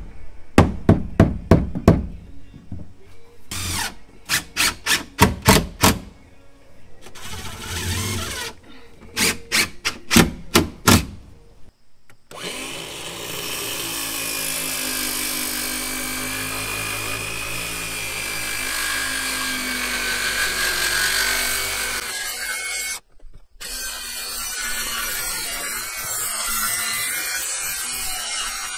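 Tool work on wood: several groups of sharp, rapid knocks during the first twelve seconds, then a power tool running steadily for about ten seconds, stopping briefly and starting again near the end.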